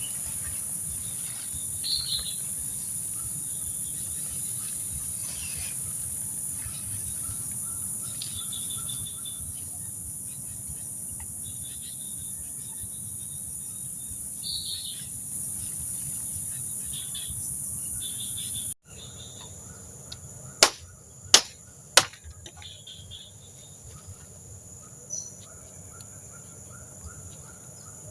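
A steady high-pitched chorus of insects such as crickets, with short chirping calls now and then. About two-thirds of the way through, the sound drops abruptly to a quieter chorus, and then three sharp clicks follow close together.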